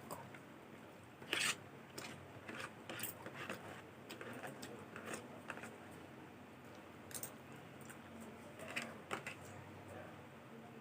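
Scattered sharp clicks and crackles from eating and handling food at the table, the loudest about a second and a half in.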